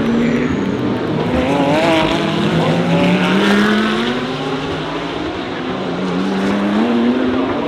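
DTM GT3 race car engines at racing speed, several overlapping, their pitch rising under acceleration and dropping at gear changes and braking.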